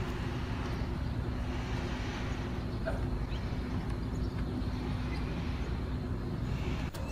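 Steady drone of a moving road vehicle heard from on board: engine hum under road noise. It breaks off near the end.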